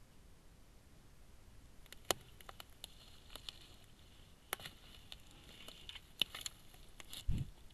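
Scattered sharp clicks and rustling as a large animal's fur brushes and nudges the trail camera housing, from about two seconds in, with a short low sound near the end.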